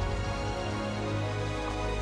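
Background music: soft, sustained instrumental soundtrack with held notes and a steady low bass.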